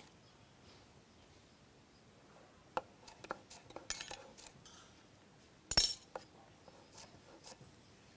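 Cleaver slicing a green bell pepper on a wooden chopping board: a handful of irregular sharp knocks of the blade on the board, the loudest about two-thirds of the way through.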